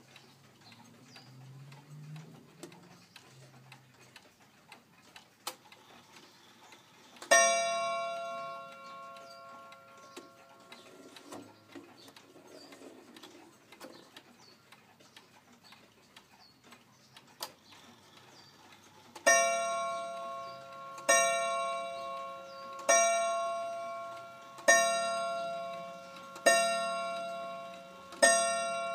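31-day Korean pendulum wall clock striking: a single ringing strike for the half hour, then six evenly spaced strikes about two seconds apart sounding six o'clock, each ringing out and dying away. The pendulum movement ticks faintly underneath.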